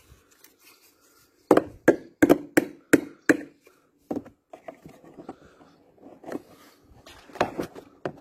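Hammer tapping a plastic Hot Wheels toy part into place: a quick run of about six sharp strikes, roughly three a second, followed by fainter, scattered knocks and handling.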